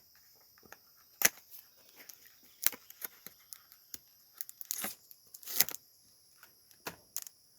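A cigar's cellophane wrapper crinkling and tearing as it is pulled off, in short irregular bursts with a few clicks.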